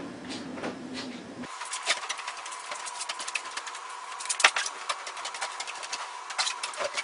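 Electric rotary buffer polishing car paint: a steady high motor whine with a dense crackle of light ticks from the pad. It sets in abruptly about a second and a half in, after a lower rumble.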